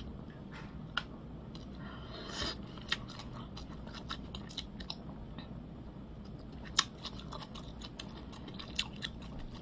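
A person eating with chopsticks: quiet chewing with scattered sharp mouth clicks and smacks, and a short burst of noise about two and a half seconds in.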